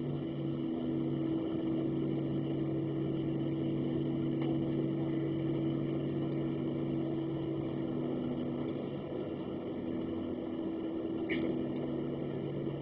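Cabin noise of a Boeing 737-700 on the ground: the engines run at taxi power as a steady hum of several low tones over an even rush of air, with a short high chirp near the end.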